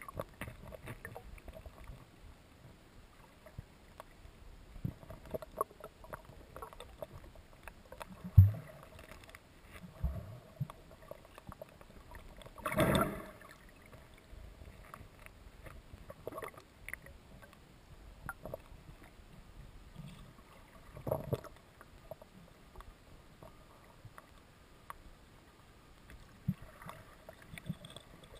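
Handling noise of a camera filming underwater: scattered muffled knocks and water movement, with one loud low thump about eight seconds in and short rushes of noise around thirteen and twenty-one seconds.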